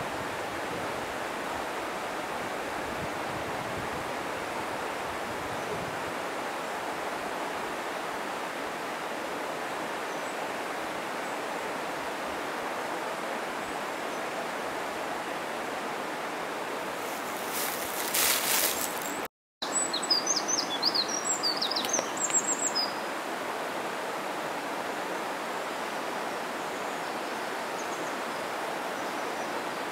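Steady rush of a mountain stream's flowing water. About eighteen seconds in there is a brief louder noise and a short cut to silence, then a small bird chirps rapidly for a few seconds.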